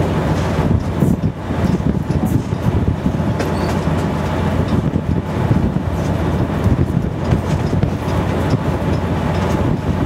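Locomotive 401Da-131 running along the track, a steady, loud low drone of its diesel engine mixed with wheel and rail noise.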